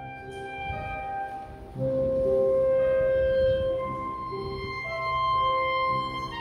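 Background music: a slow melody of long held notes, with a held note getting louder about two seconds in.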